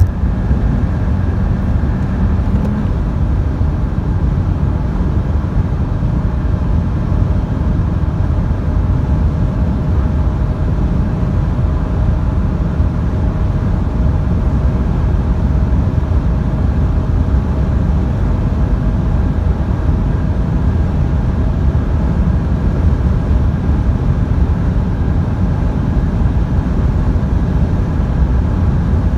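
Seat Leon Mk3's 1.2 TSI turbocharged four-cylinder petrol engine heard from inside the cabin, pulling at full throttle in sixth gear at about 5,000 rpm. It runs as a steady drone under heavy wind and road noise, its pitch creeping up only slowly as the car gains speed near its top end.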